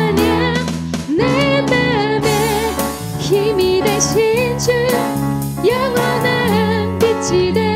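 A live worship band: female voices singing a Korean praise song in unison, backed by acoustic guitar, keyboard and drums with a steady cymbal beat.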